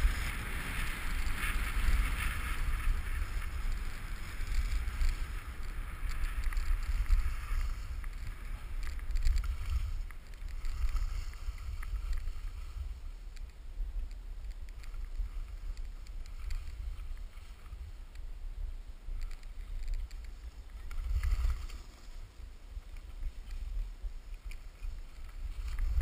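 Wind rumbling and buffeting on an action camera's microphone over the hiss of skis sliding on groomed snow during a downhill run. The rush eases off near the end as the skier slows.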